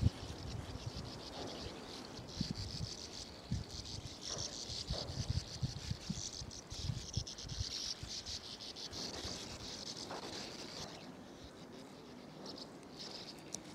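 A colony of sand martins chattering: a dense wash of dry, rasping calls, continuous at first and breaking into separate short bursts near the end. Irregular low thumps sound underneath.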